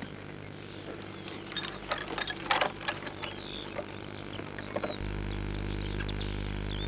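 Dry hay rustling and crackling in a few short bursts as someone moves in a haystack, with a couple of faint short chirps. A steady low hum comes up about five seconds in.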